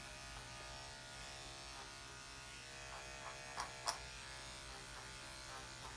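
Corded electric dog clippers with a #7 blade running with a steady buzz while shaving matted coat on the dog's head and ear. Two brief clicks a little past the middle.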